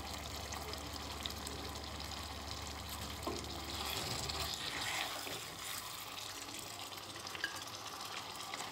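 Chicken karahi sizzling faintly in a wok, with a few soft spatula scrapes. A low hum cuts out about halfway through.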